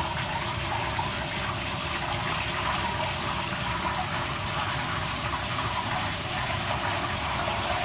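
Steady rushing background noise with no distinct strokes or knocks.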